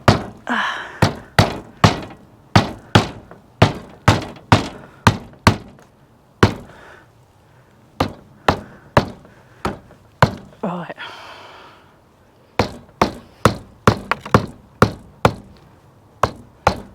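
Hammer knocking roof tacks back into a shed roof: runs of sharp blows at about two a second, broken by two short pauses.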